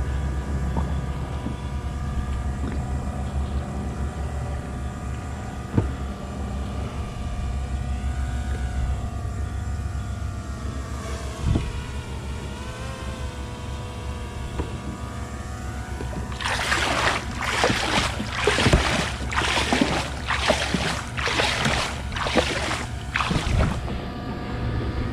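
Jet ski engine idling steadily, its pitch wavering a little midway. In the last several seconds a run of rushing, splashing bursts comes about once a second over the engine.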